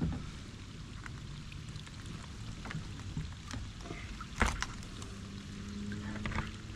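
Wire crab trap being shaken and tipped to dump blue crabs out, with scattered clicks of wire and crabs, water dripping, and one sharp knock about four and a half seconds in. A faint steady hum starts about five seconds in.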